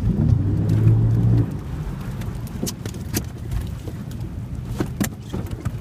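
Boat motor running. Its note rises and holds loud and steady for about a second and a half, then drops back to a low drone. A few sharp knocks come near the middle and end.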